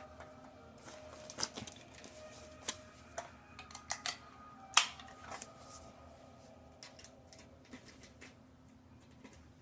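Plastic caution tape crackling and clicking as it is handled and wrapped: a handful of sharp crackles, the loudest about five seconds in, then only faint handling noise.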